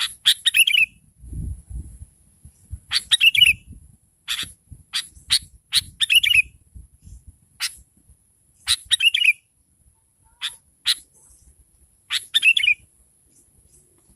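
Sooty-headed bulbul (kutilang) calling: a short chattering, falling phrase about every three seconds, with single sharp chip notes in between. A faint steady high whine runs underneath.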